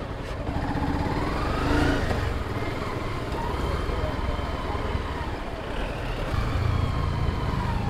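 Motorcycle engine running at low speed in town traffic, its pitch rising and falling about a second in as the throttle is opened and eased, over steady road and street noise.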